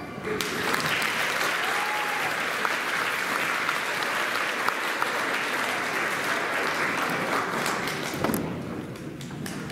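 Audience applauding, fading out to a few scattered claps near the end.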